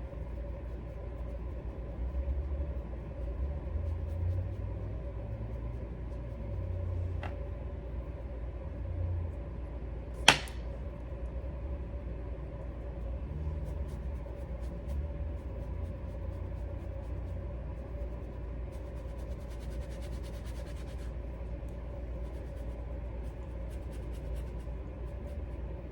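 Steady low room hum with soft low bumps of handling, and one sharp click about ten seconds in.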